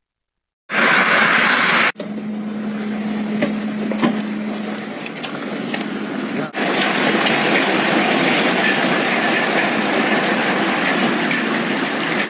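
Heavy hail and rain pelting down in a storm: a dense, steady hiss of falling ice and water with many sharp ticks of hailstones striking hard surfaces, in several short clips cut together.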